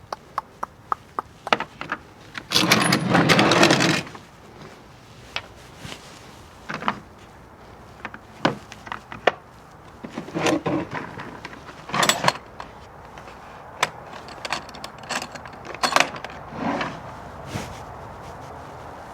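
Scattered clinks, clacks and knocks of hand tools and metal parts being handled, with a dense burst of rattling about three seconds in.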